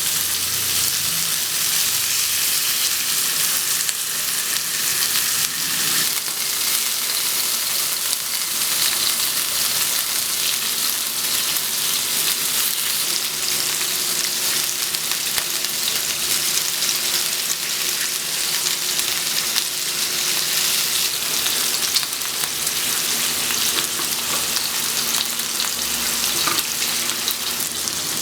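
Pork belly, neck and jowl cuts sizzling steadily as they grill, with fine crackling from the hot fat.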